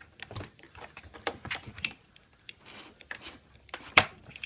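Irregular small clicks and taps of drill accessories, a nut-driving socket and bits, being handled and taken out of the kit's accessory box, with one louder knock near the end.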